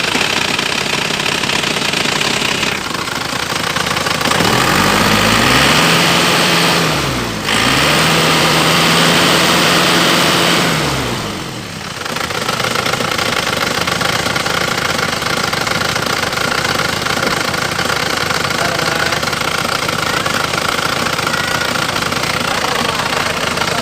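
Isuzu Panther's four-cylinder diesel engine, freshly rebuilt, running at idle. It is revved up twice, held for a few seconds each time, and settles back to a steady idle.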